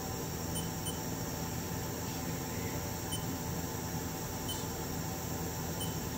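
Steady low hum of a powered-up Haas TM2 CNC vertical mill standing ready, with about five faint short beeps spread through it.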